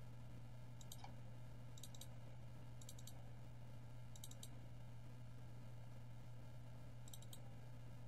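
Faint computer-mouse double-clicks, about one a second for the first few seconds, then one more pair near the end, over a steady low electrical hum.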